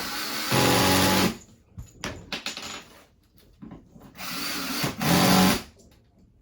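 Power drill running in two short bursts, about a second and a half each, with a steady motor whine, driving screws into flat-pack furniture panels.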